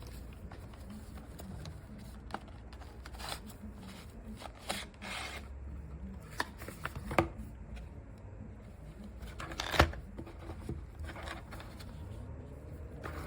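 Product packaging being handled and opened by hand: irregular clicks, taps and rustles of cardboard and plastic, the loudest a sharp knock about ten seconds in.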